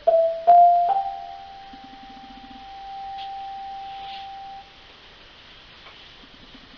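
Three pure, bell-like notes struck in quick succession, each a little higher than the last. The last note is held for nearly four seconds before it stops.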